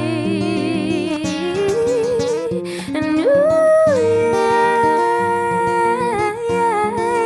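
A woman's voice singing wordlessly over acoustic guitar accompaniment: long held notes with vibrato, sliding up and down between pitches, the closing ad-lib of a ballad.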